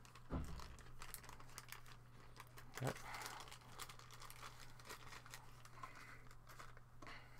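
Thin clear plastic bag crinkling as hands open and handle it, with a soft knock just after the start and another about three seconds in.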